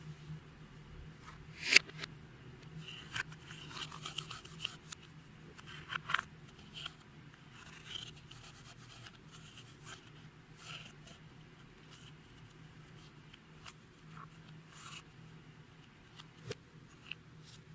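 Hands working with slime-making materials and makeup: scattered small clicks, scrapes and light crinkling, with one sharp click about two seconds in, over a faint steady low hum.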